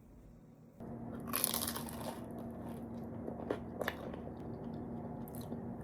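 A crackly crunch about a second and a half in, then a few small sharp clicks, over a steady low hum.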